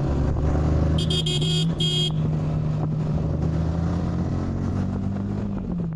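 Yamaha MT-15's single-cylinder engine running at a steady speed while riding. Two short high-pitched horn beeps come about a second in.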